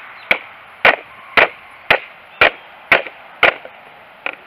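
Cold Steel Finn Bear fixed-blade knife chopping into a dry stick: seven sharp strikes about two a second, then a lighter eighth.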